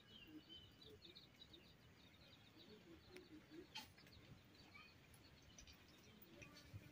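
Near silence: faint outdoor background with distant bird chirps and a couple of faint clicks.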